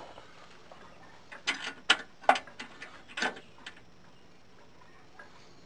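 About six sharp clicks and knocks over two seconds, from tools and parts being handled and set down, the loudest two close together in the middle.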